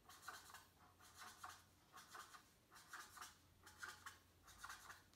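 Felt-tip marker drawing on paper: faint scratchy strokes, short and repeated about twice a second.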